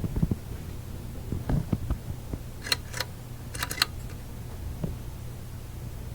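Steady low hum, with light clicks and taps from handling the old radio chassis: two sharp clicks a bit under three seconds in and a quick cluster of clicks just before four seconds.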